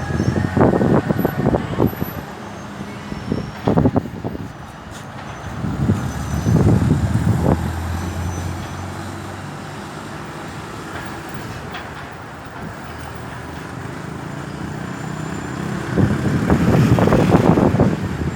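Road traffic: motor vehicles passing close by with engine and tyre noise. It swells loudest about six to eight seconds in and again near the end.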